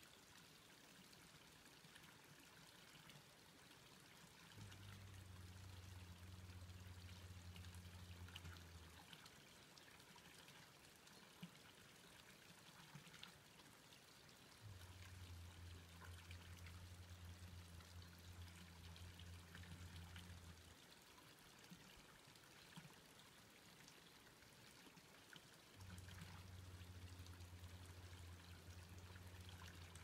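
Near silence: faint outdoor ambience with a soft hiss. A low steady hum comes in three times, each lasting about five seconds, roughly ten seconds apart.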